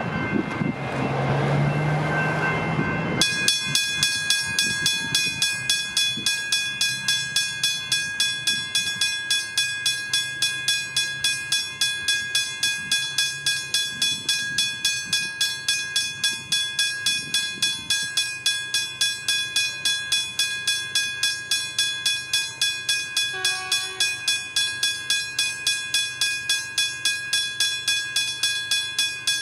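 Westinghouse hybrid level-crossing bell ringing in a fast, even stream of strikes, about three a second, cutting in suddenly about three seconds in. Before it, the rumble of a departing train. A short extra tone sounds briefly about two-thirds of the way through.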